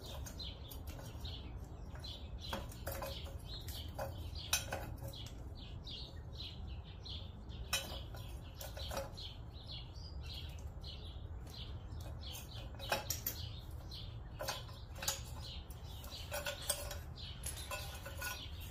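Light metal clinks and knocks of steel exhaust pipe pieces and the turbo being handled and test-fitted, a few sharper clinks standing out, over a steady low hum and continual high bird chirping.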